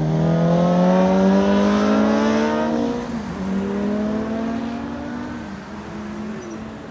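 SUV driving past close by and accelerating. Its engine note rises steadily, dips sharply about three seconds in, then holds steadier and fades as it moves away.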